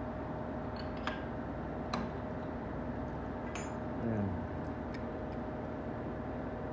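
A few light metallic clicks and taps from handling the timing chain and engine parts, over a steady hum with a constant tone; a short falling sound about four seconds in.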